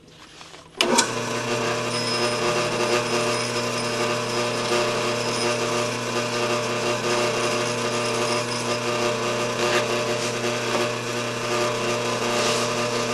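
Belt-driven drill press switched on with a click about a second in, then its motor running with a steady hum. The belts are set for its slow speed of about 250 RPM.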